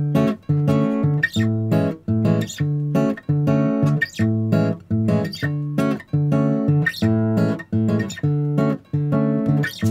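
Background music: a guitar strummed in a steady rhythm, about two strums a second.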